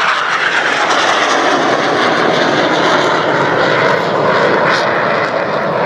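Formation of Aermacchi MB-339 jet trainers flying past, their turbojet engines making a loud, steady rushing noise.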